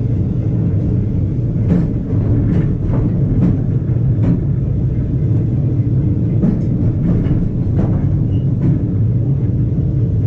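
Vintage electric tram running along its track, heard from inside the wooden saloon: a steady low rumble of wheels and motor with irregular clicks and knocks from the running gear on the rails.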